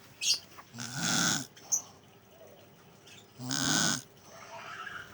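Snoring: two loud rasping snores in a slow, even breathing rhythm, each with a low buzzing tone, about two and a half seconds apart. Two brief sharp clicks or sniffs come in between.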